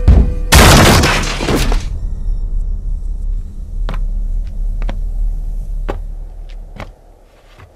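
A loud crash about half a second in, lasting over a second, then a low rumble that fades out with a few sharp clicks scattered through it.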